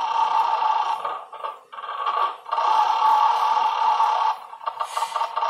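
Electronic sound effects from a coin-operated roulette arcade machine as its lights run around the number wheel: a steady buzzy electronic tone that breaks up twice, then turns into a rapid run of short beeps near the end.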